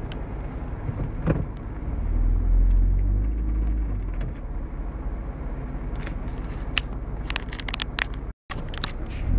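Off-road 4x4's engine running with a low rumble that grows louder for a couple of seconds about two seconds in. Scattered sharp clicks and knocks sound over it.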